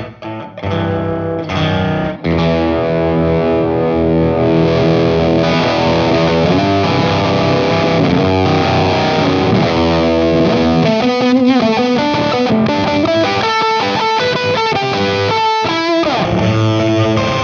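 Electric guitar played through a Vemuram Myriad fuzz pedal into an Amonito tube amp, with thick fuzz distortion. It opens with short choppy chords, moves to sustained ringing chords, and turns to single-note lines in the second half.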